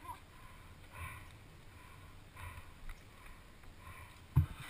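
Mountain bike tyres rolling on wet asphalt, a faint hiss of water under the wheels, with a short low knock near the end.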